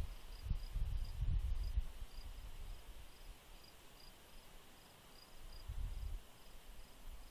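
Crickets chirping steadily, about three chirps a second, over a continuous high insect trill. Low rumbles come and go about half a second to two seconds in and again around six seconds.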